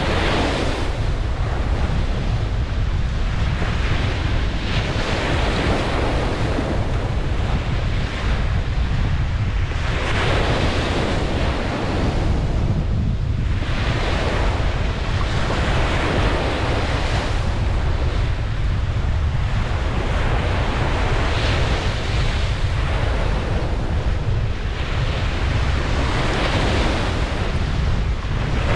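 Ocean waves breaking on a beach, the surf swelling and washing in every few seconds, with a steady low rumble of wind on the microphone.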